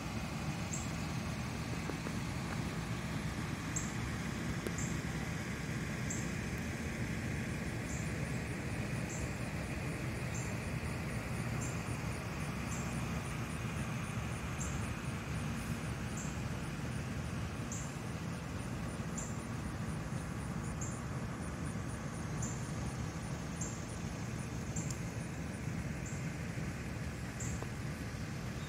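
Steady outdoor ambience: an even low rumble with no clear events, and faint high ticks about once a second.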